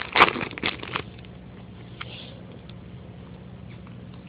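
Foil wrapper of a baseball card pack crinkling as it is torn open, a loud rustle in the first second, then a few faint ticks of cards being handled over a low steady hum.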